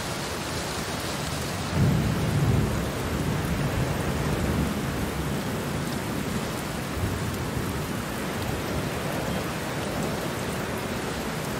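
Steady rain falling, with a low roll of thunder swelling about two seconds in and fading back into the rain.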